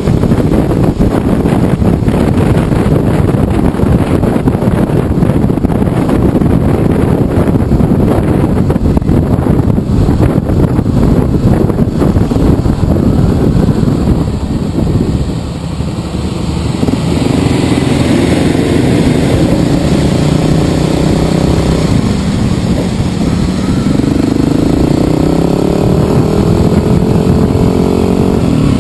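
Motorcycle engine running while riding, with heavy rushing wind noise on the microphone. About halfway through the rushing eases and the engine note comes through clearly, rising in pitch as the bike accelerates near the end.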